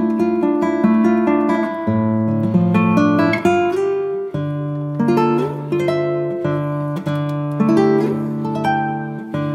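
Background music: a plucked acoustic guitar melody, notes following one another at a steady pace.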